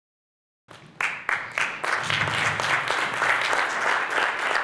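Audience applauding: a few separate claps about a second in, quickly building into steady clapping from a room full of people.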